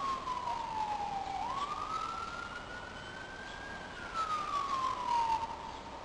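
A siren wailing: a single tone that slides slowly down, rises again over about two seconds, holds, and falls once more near the end.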